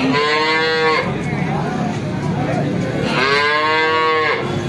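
A young calf bawls twice, each call high-pitched and about a second long.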